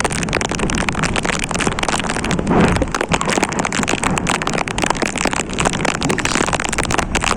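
Heavy rain falling: a dense run of small drop hits over a low steady rumble.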